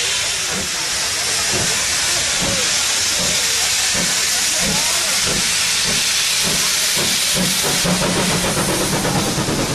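A steam locomotive moving slowly past, venting steam with a loud, steady hiss from low at the front, around the cylinders. A low rhythmic rumble of the engine and running gear grows near the end.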